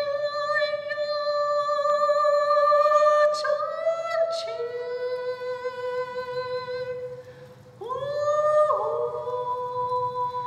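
Music: a wordless voice sings a few long, held notes, each one sliding up into pitch before it settles. There is a brief pause a little past the middle.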